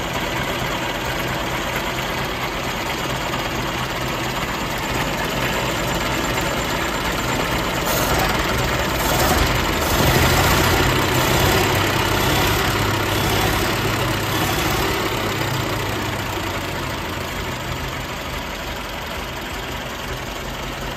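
Sizaire-Berwick 23/46 vintage car engine idling steadily with the bonnet open, getting louder for a few seconds near the middle and then settling back.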